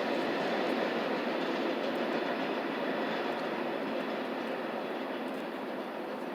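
Norfolk Southern intermodal freight train's cars rolling along the rails, a steady noise of wheels on track that slowly fades as the train moves away.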